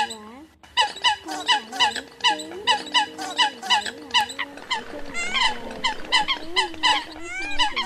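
Eurasian coot calls played as a trapping lure: a rapid series of short sharp calls, several a second, over lower wavering calls, with a brief gap about half a second in.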